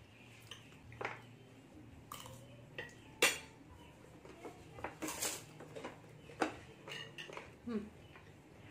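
A metal spoon and fingers working rice on ceramic plates during a meal: irregular sharp clinks and scrapes of spoon on plate, the loudest about three seconds in.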